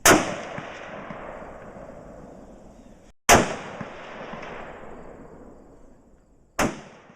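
Three .308 rifle shots from a Remington VTR bolt-action rifle, about three seconds apart, each sharp report followed by a long echo that fades away; the last echo is cut short.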